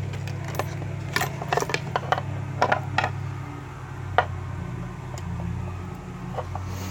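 Small metal lock-picking tools being handled and set down: a run of light metallic clicks and taps, the sharpest about four seconds in, over a steady low hum.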